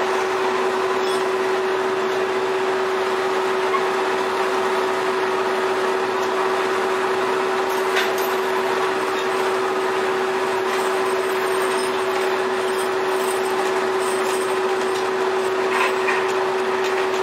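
Steady mechanical drone of a tuna seiner's deck machinery: a constant hum over a noisy rumble, with a light knock about eight seconds in.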